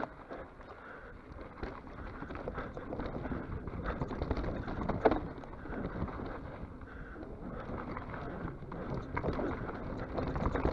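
Mountain bike rolling over a rough trail: a steady rumble full of small rattles and knocks from the bike, with wind on the microphone and one sharper knock about five seconds in.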